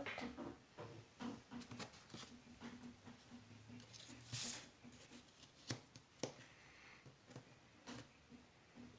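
Faint handling of jigsaw puzzle pieces: scattered light clicks and taps as pieces are picked up, tried and set down, with a brief rustle about four and a half seconds in.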